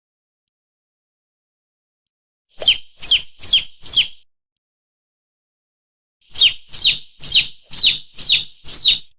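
Mongoose and monitor-lizard lure call: shrill, bird-like chirps repeated in quick series, four in a row, a pause, then six more, with dead silence between the series.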